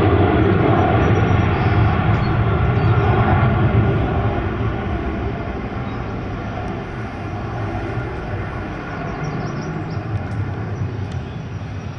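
Jet noise from a Gulfstream 200's twin Pratt & Whitney PW306 turbofans at takeoff thrust. It is loud and steady through the takeoff roll and lift-off, then fades from about four seconds in as the jet climbs away.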